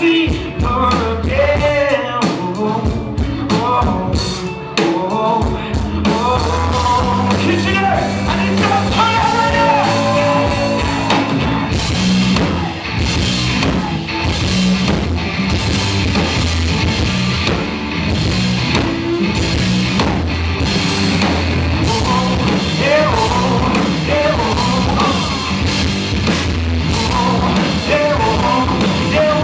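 Live rock band of electric guitar and drum kit with male lead singing. The opening seconds are sparse drum hits under the voice, then the full band comes in about six seconds in and plays on. The recording is heavily distorted.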